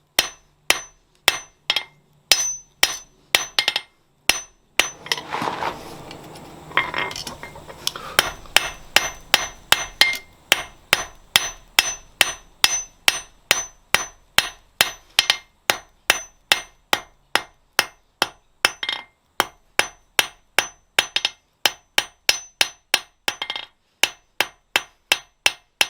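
A blacksmith's hand hammer striking steel on an anvil in a steady rhythm of about two to three blows a second. Each blow rings. A rushing noise runs underneath for a few seconds about a fifth of the way in.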